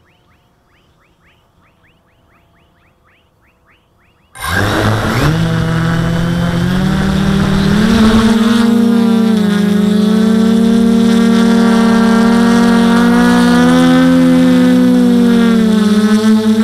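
Faint rapid chirping, several chirps a second, then about four seconds in a quadcopter's electric motors and propellers spin up suddenly, rising in pitch, and run on as a loud steady whine that wavers slightly in pitch as the throttle changes.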